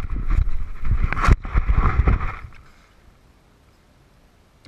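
Close rubbing and knocking of an action camera being handled and set down in grass. It stops about two and a half seconds in, leaving faint outdoor background.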